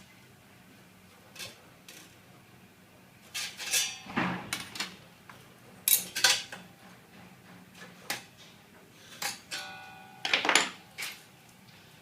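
Handling of a steel tape measure and steel cable tray while measuring and marking: scattered clicks and light metallic clinks, one of which rings briefly near the end.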